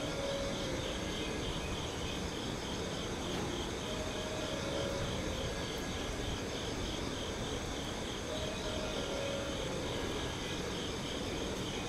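Insects chirping in an even pulsing rhythm of about two to three chirps a second, over steady background noise.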